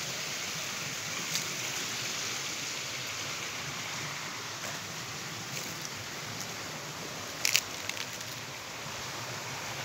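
Steady hiss of outdoor background noise, like wind or running water, with a faint click about a second in and a short cluster of sharp clicks about three-quarters of the way through.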